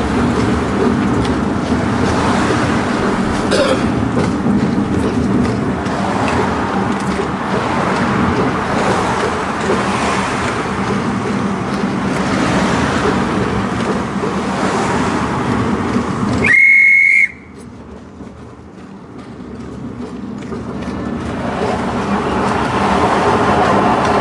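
Horse tram running along its street rails, a steady rumble of wheels on track. About two-thirds of the way in, a short, high whistle-like tone sounds once, and right after it the running noise drops away suddenly and builds back up over several seconds.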